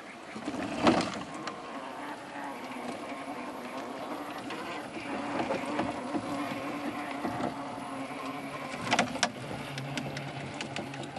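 Electric motor and geared drivetrain of a Traxxas TRX-4 RC rock crawler whirring steadily as it crawls over rock. A sharp knock comes about a second in, and a couple of clacks come near the end.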